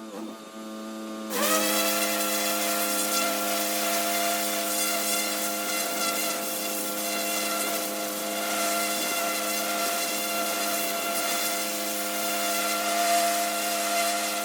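Pressure washer running with a steady humming note while its water jet blasts brick paving with a loud hiss; the spray cuts out at the start and comes back on sharply about a second in.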